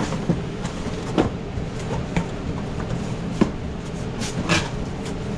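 Cardboard boxes of engine parts being handled: a few short knocks and clicks over a steady low machine hum.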